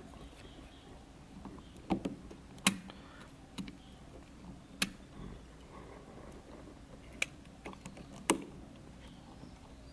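A utility knife cutting and prying at glued parts on an inverter's circuit board: a handful of brief, sharp clicks and snaps at uneven intervals.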